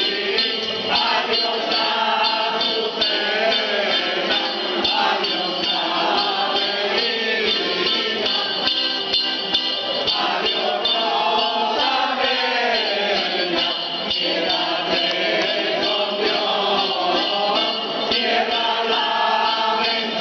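A group of older men and women singing a traditional Spanish May song (a mayo) together, accompanied by a piano accordion, with the jingles on a ribboned staff shaken in time.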